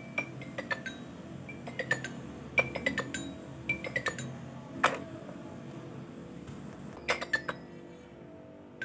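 Background music of light, plucked, bell-like notes over a soft steady low backing.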